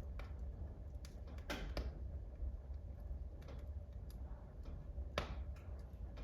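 Wood fire in a wood-burning stove crackling, with scattered small snaps and two louder pops, one about a second and a half in and one near the end, over a low steady rumble.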